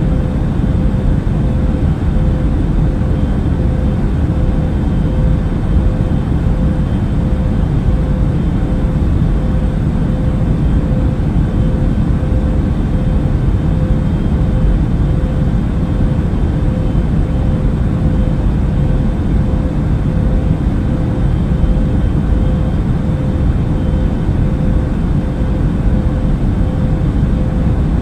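Airliner cabin noise in flight: a steady low rumble of engines and rushing air, with a constant mid-pitched hum on top.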